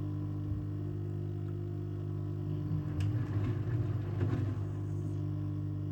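LG F1222TD washing machine running, a steady mechanical hum with a rougher swell of churning noise about three seconds in.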